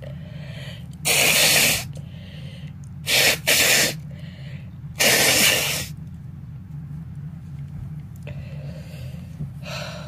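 A person forcing loud bursts of air through the nose four times, the middle two close together: a fit of sneezing and nose blowing set off by dust.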